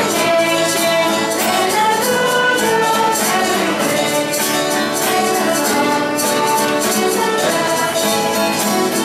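Music with a steady beat and melodic instruments.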